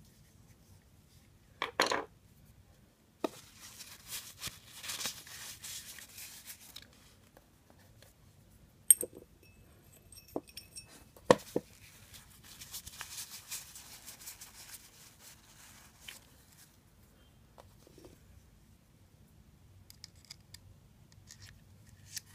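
Crumpled paper tissue rustling and crinkling in two stretches as hands wipe spinning-reel parts, with a few sharp clicks and knocks of small reel parts being handled.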